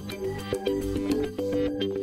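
Background music: held chords that change every half second or so over a steady beat.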